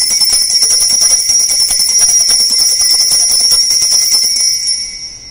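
Altar bells shaken continuously in a rapid jingling ring with steady high tones, fading away near the end. The ringing marks the elevation of the host at the consecration.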